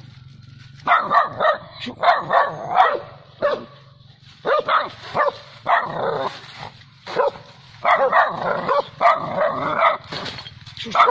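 Dog barking in quick, closely spaced barks at a Bornean wild cat, starting about a second in.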